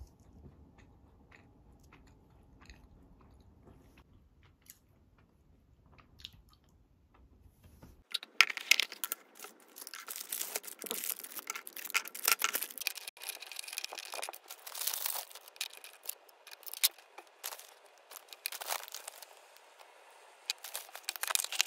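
Faint clicks and handling for about eight seconds, then dense, loud crunching and crackling close to the microphone, with many sharp clicks, to the end.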